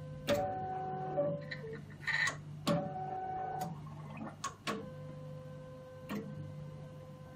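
SY-BH192 hematology analyzer running its flush-lyse cycle: irregular sharp clicks from its valves, with two short spells of motor whine in the first half and a steady hum, as it pumps lyse reagent through its lines.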